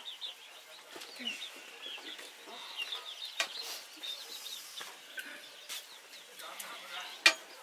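Chickens clucking, with many short high chirps all through. A few sharp clicks or knocks cut in, the loudest near the end.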